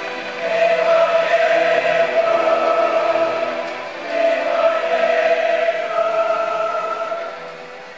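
A choir singing on a film soundtrack, played back from the DVD into the room. It sings two long held phrases, and the level drops as the second ends near the end.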